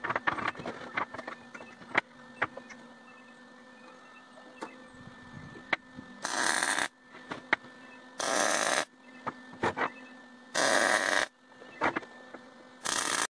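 Arc welder laying four short tack welds on a railroad spike cross, each a crackling burst under a second long that cuts off sharply. Before the welds there are a few clinks of steel spikes being set down on a steel table.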